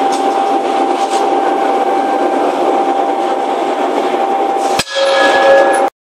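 Loud, steady forge-shop machinery noise with a constant whine, and one sharp bang near the end, as a hand-swung ram strikes the die key of a forging hammer. After the bang, different steady tones sound briefly and then stop abruptly.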